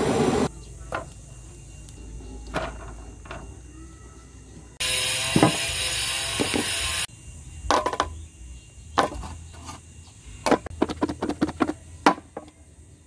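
Handheld butane torch hissing as it lights a wood fire, cutting off about half a second in. A second steady hiss follows at about five seconds and lasts some two seconds, then a quick run of sharp knocks and clicks on a wooden table.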